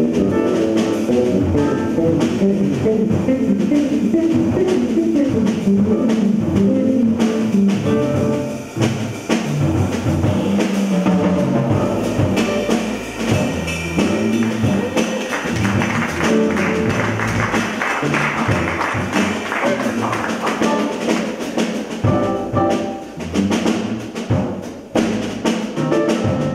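Live small-group jazz: electric keyboard, electric bass guitar and drum kit playing together, with the cymbals swelling louder for a few seconds past the middle.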